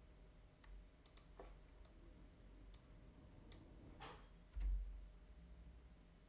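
Faint computer mouse clicks and keyboard key presses, about half a dozen sharp clicks spread out, with one dull low thump, the loudest sound, a little over four and a half seconds in.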